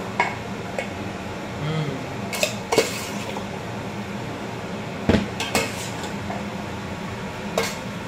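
Metal spoon stirring and tossing a glass-noodle seafood salad in a stainless steel mixing bowl, with soft scraping and several sharp clinks of spoon on bowl, over a steady low hum.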